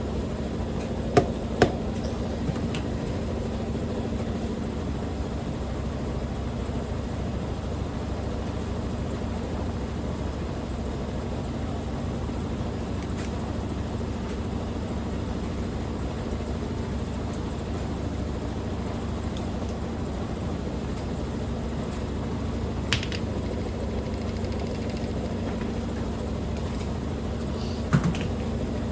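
Washing machine in its spin cycle, running at speed with a steady hum and low rumble while the machine shakes. A few sharp knocks come through, twice in the first two seconds and again near the end.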